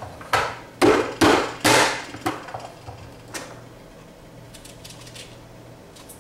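Vidalia Chop Wizard's hinged plastic lid slammed down onto a half onion, forcing it through the dicing grid: four sharp, loud whacks in quick succession, then two lighter knocks.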